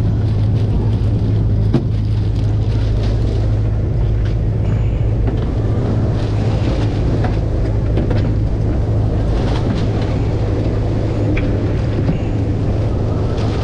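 Fishing boat's engine running with a steady low drone. A single sharp knock comes about two seconds in.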